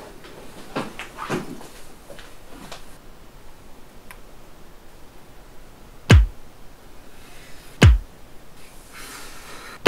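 Soundtrack of deep booming bass hits, each falling in pitch: three of them, about two seconds apart, in the second half. A few faint knocks and rustles come before them in the first few seconds.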